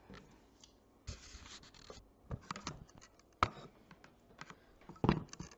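Handling noise as a camera is picked up and repositioned: a short scraping rustle, then scattered clicks and knocks, with the sharpest knock near the middle.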